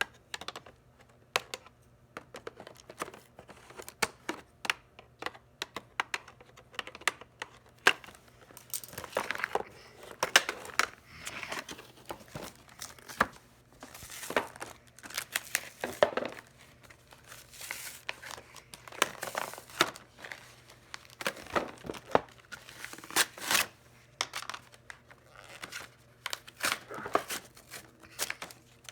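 Packaging being torn open and handled: plastic crinkling and cardboard tearing in irregular rustles and snaps as a Nerf blaster is unboxed.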